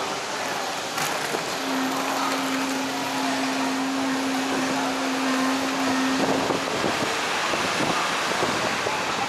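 Steady background noise of a busy covered walkway, with a single steady low tone held for about five seconds from a second or two in.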